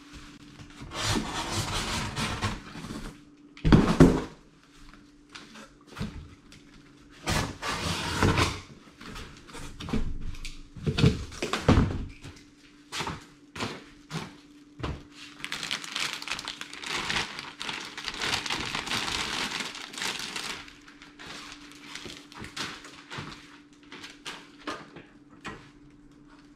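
Clear plastic wrapping rustling and crinkling as it is pulled off a reel mower packed in a cardboard box, with knocks and thumps from handling the box and machine, the heaviest about four seconds in. A faint steady hum runs underneath.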